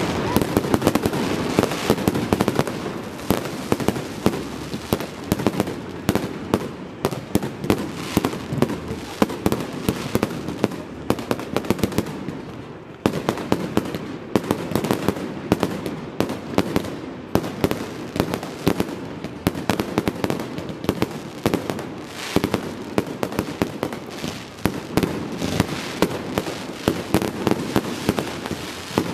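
Fireworks display: aerial shells bursting overhead in a dense, rapid string of bangs and crackling pops that keeps going, easing briefly about 13 seconds in before picking up again.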